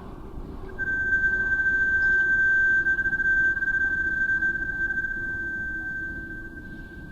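A single steady high tone, like a whistle, starts about a second in and holds for about six seconds, slowly fading, over a low rumble.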